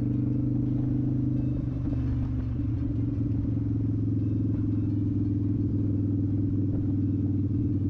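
2011 Victory Vegas Zach Ness edition's V-twin engine through a Bassani Pro-Street turnout exhaust, running at a steady cruise on the road.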